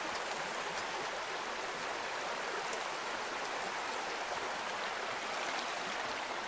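Shallow rocky stream running over stones, a steady rush of water.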